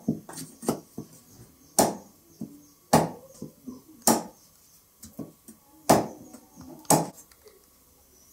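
Curved knife chopping a point onto a wooden broom handle held on a log chopping block: sharp wooden chops, several quick ones at first, then single strokes about a second apart, stopping about seven seconds in.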